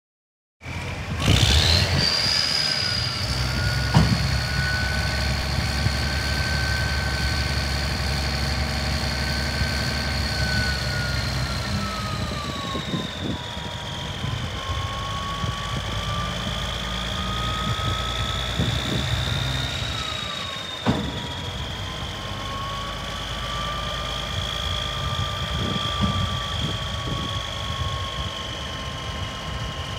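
1990 Freightliner tandem-axle dump truck's diesel engine running, with a high whine from the hydraulic pump as the dump bed is raised and lowered. The engine is heavier in the first half, and the whine drops in pitch around the middle. Two sharp knocks come about four seconds in and about two-thirds of the way through.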